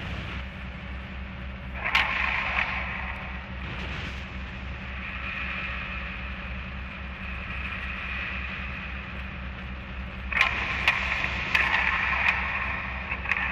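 Harsh noise music: a steady, rapidly pulsing low drone under distorted, crackling high noise that flares up about two seconds in and again from about ten seconds on.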